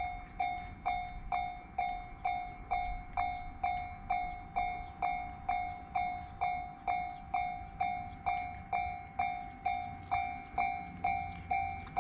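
Japanese railroad crossing warning bell ringing its steady 'kan-kan' alarm, a clear ringing tone struck a little over twice a second.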